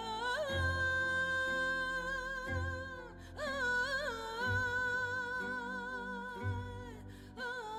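Background music: a slow melody of long, held notes that waver slightly and break into short ornamented turns, over a low beat about every two seconds.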